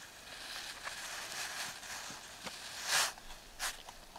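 Powdered egg mix being poured into a pot of boiling water and stirred in: a soft hiss with small clicks, then two short, louder scrapes of the utensil about three seconds in.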